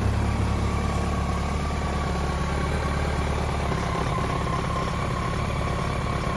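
2003 BMW K1200GT's inline-four engine idling steadily.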